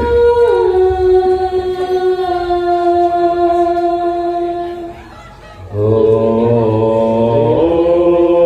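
Javanese wayang orang vocal accompaniment: a single high voice holds long, drawn-out notes that step down in pitch, then after a short break about five seconds in, a group of lower voices comes in singing together.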